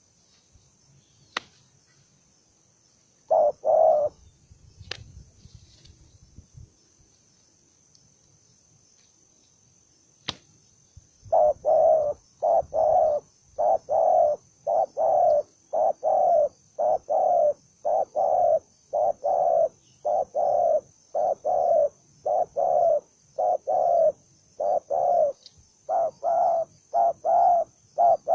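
A spotted dove (Vietnamese cu gáy) cooing: two loud short notes near the start, then from about eleven seconds in a long unbroken run of short coos, about one and a half a second. A few sharp clicks come before the run, and a faint steady high whine lies under it all.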